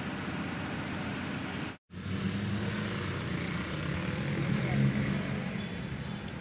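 Steady outdoor vehicle noise, with a low engine hum that comes in after the sound drops out briefly just under two seconds in.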